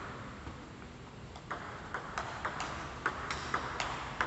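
Table tennis ball clicking on the paddles and bouncing on the table in a rally: a run of sharp clicks in quick succession, starting about a second and a half in.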